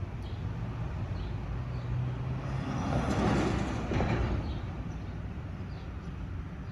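Landing jet airliner passing: its engine noise swells to a peak about three seconds in and then eases off, over a steady low hum.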